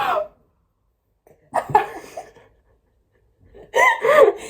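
Short bursts of a person's voice: brief vocal sounds, not clear speech, with a sharp sneeze-like onset about one and a half seconds in. They are separated by stretches of dead silence.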